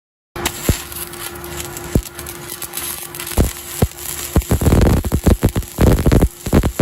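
Arc welding on galvanized steel sheet. The arc starts abruptly with a hiss and scattered sharp pops, then turns to dense, rapid crackling about four and a half seconds in.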